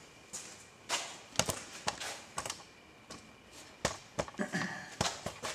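Scattered light knocks and clicks at irregular intervals, a few a second, with no machine running.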